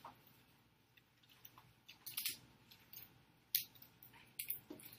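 Faint, scratchy strokes of a coloured pen drawing on paper, with a single sharp click about three and a half seconds in.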